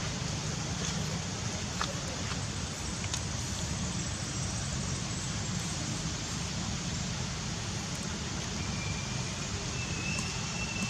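Steady low rumble of outdoor background noise, with a few faint clicks and a thin high whistle in the last couple of seconds.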